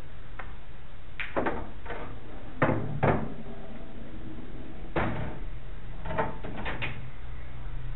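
Pool balls and cue on a pool table: a scattered series of sharp clacks and knocks, the loudest pair about two and a half and three seconds in, over a steady low hum.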